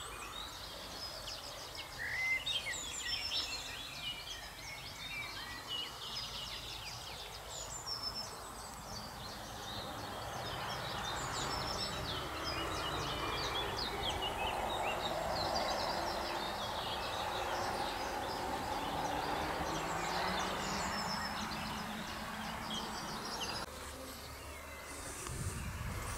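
Outdoor ambience of songbirds singing and calling, many short chirps and whistles. In the middle a broad rushing noise swells and then fades.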